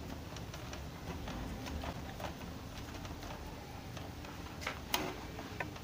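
Electrical tape being wrapped around a wire joint and the wires handled: faint, irregular light clicks and crackles, with one sharper click near the end.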